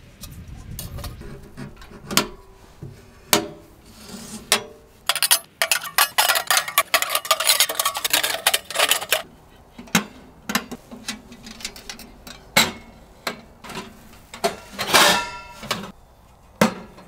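Irregular knocks and clatter of hard objects being handled, thickest in the middle, with metal ringing briefly about fifteen seconds in.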